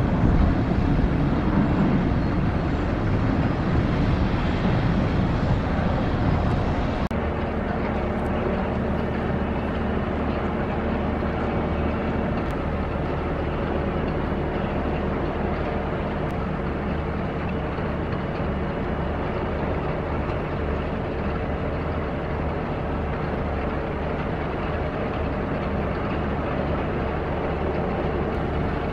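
Inland cargo ship's diesel engine running steadily. A deep rumble for the first seven seconds changes abruptly to a steadier hum with several fixed low tones.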